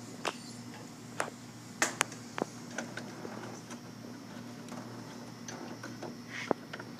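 Scattered light clicks and taps of plastic PLC terminal connector blocks being handled and fitted back onto the controller, over a faint steady hum.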